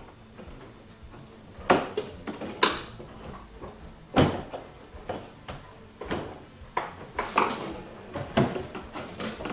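Hand tools and loose parts clicking and knocking during disassembly work, about a dozen sharp irregular knocks, the loudest around two and four seconds in.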